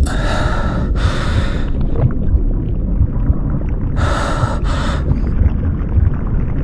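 Frightened, heavy human breathing, two quick breaths in and out near the start and again about four seconds in, over a continuous deep, low drone of horror ambience.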